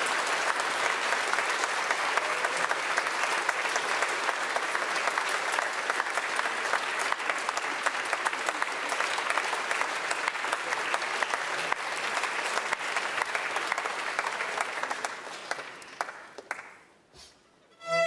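Audience applauding in a theatre, a dense steady clapping that dies away about a second before the end into a brief hush.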